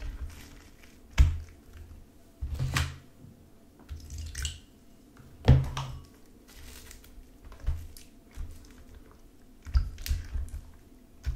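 Sticky, stringy glue slime being stirred and folded with a craft stick in a plastic tray: wet squelching with several sharp sticky pops at irregular intervals.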